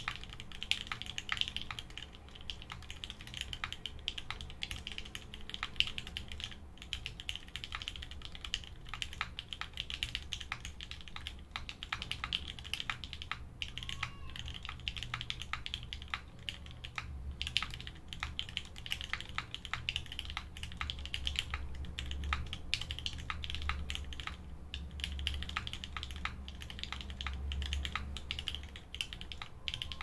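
Wilba.tech Thermal 60% mechanical keyboard typed on steadily, a dense run of keystrokes. It has lubed and filmed Gateron Ink Black linear switches in a polished anodised aluminium plate, with EPBT keycaps.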